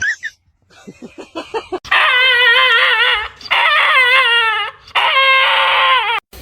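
A pet dog howling: three long calls with a wavering pitch, after a short opening yelp and a few quick short whines.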